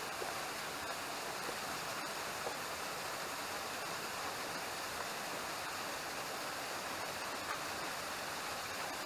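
Waterfall rushing steadily, an even wash of falling water, with a few faint clicks over it.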